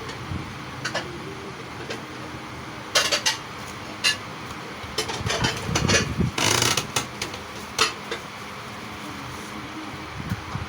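Dishes and utensils clattering: a few sharp knocks and clinks, and a brief noisy scrape about six and a half seconds in, over a steady fan hum.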